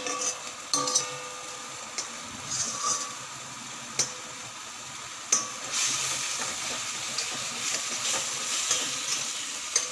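Steel ladle stirring and scraping onion-tomato masala in a steel kadhai, with a few sharp clinks of metal on metal, over the steady sizzle of the masala frying in oil.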